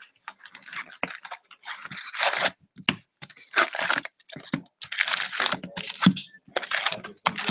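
Foil-wrapped trading card packs crinkling and rustling as they are pulled out of their cardboard box and stacked, in several separate bursts with small taps between.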